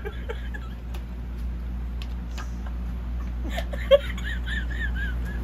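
Steady low hum of room noise. About four seconds in there is a single sharp knock, followed by a run of about five short, high squeaks that rise and fall.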